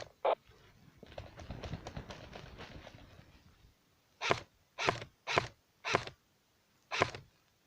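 Rustling and scraping of clothing or brush, then a run of crunching footsteps on rough ground, about two a second.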